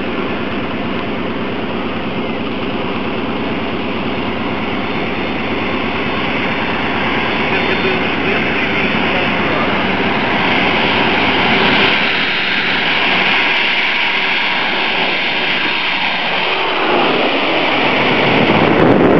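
Airbus A310 airliner's twin jet engines, a steady jet rumble and whine that slowly grows louder as the plane makes a low, gear-down pass toward the listener. Wind buffets the microphone at the very end.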